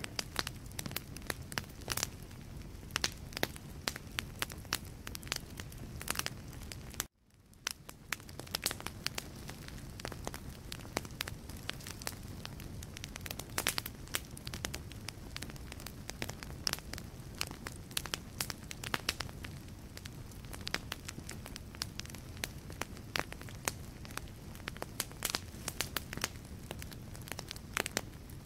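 Wood fire burning in a fireplace, crackling with frequent sharp pops over a low steady rumble of the flames. The sound cuts out for a split second about seven seconds in, then fades back up.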